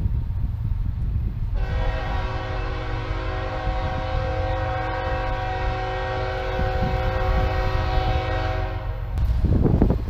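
Air horn of an approaching BNSF diesel locomotive sounding one long blast of about seven and a half seconds, a chord of several steady tones, over a low rumble; it cuts off about a second before the end.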